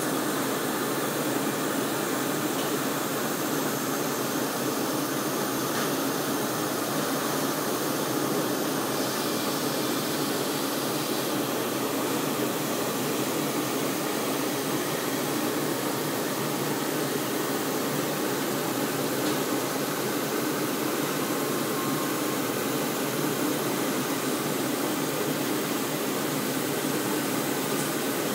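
Industrial machinery running: a steady rushing hum like fans or blowers, with no clicks, strokes or rhythm.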